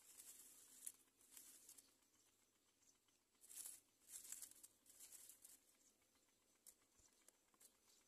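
Faint rustling and scratching of dry grass nest material as a great myna shifts about in its nest, coming in short irregular bursts, with a few light clicks near the end.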